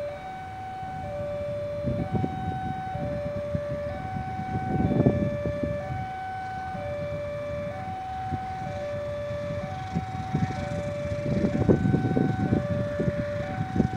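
Railway level-crossing warning alarm sounding a two-tone electronic chime, a higher and a lower note alternating about once a second, the signal that a train is approaching. A low rumble swells under it about five seconds in and again near the end.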